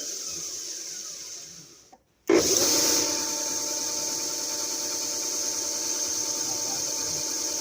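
Jet belt sander coasting down and fading out, then switched back on about two seconds in and running steadily with its belt spinning. It is a test run to check the new belt's tracking.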